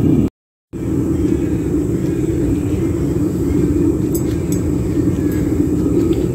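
Gas burner of a small backyard furnace running, a steady low rushing noise as it heats a crucible. The sound drops out completely for a split second about half a second in.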